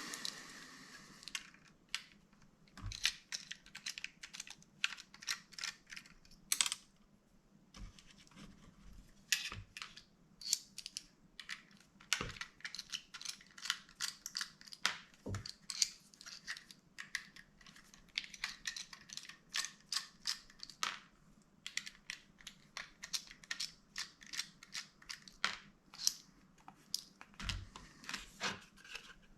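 Rapid, irregular small clicks and taps of a hand tool and plastic and metal parts being handled while a laptop is taken apart, with a few duller knocks.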